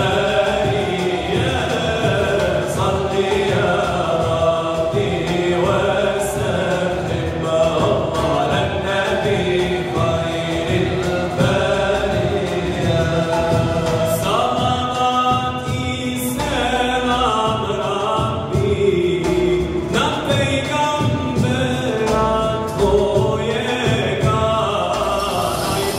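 Male voices singing an Islamic devotional song (ilahija) with a melody that glides and is held on long notes. The singing is backed by saz, flute, keyboard and a cajon beat.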